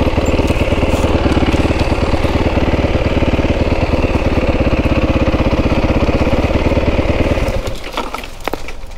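Motorcycle engine idling with a steady, even beat, then shut off about seven and a half seconds in, dying away within half a second. A few light clicks follow near the end.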